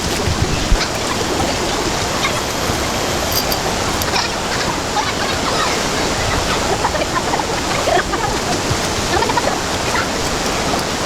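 River water rushing steadily, with short faint calls scattered over it.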